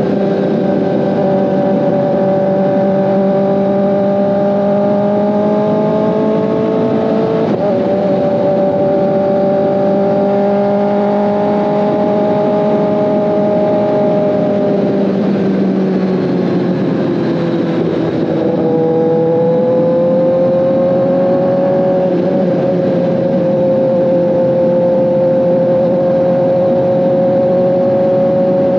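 A 2024 Kawasaki ZX-10RR's inline-four engine running at a steady cruise under way, with wind and road hiss underneath. Its note changes briefly about a quarter of the way in. It eases down in pitch past the middle, then picks up again and holds steady to the end.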